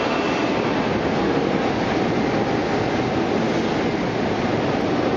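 Potato processing line running: an inclined conveyor lifting potatoes into a brush-roller washing and peeling machine, making a steady, dense mechanical rumble and rattle.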